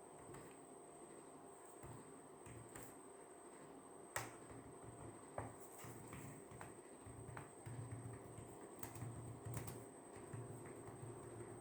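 Crickets trilling as a constant high note over a faint fan hum, broken by sparse sharp clicks and taps from desk work; the two loudest clicks come about four and five and a half seconds in.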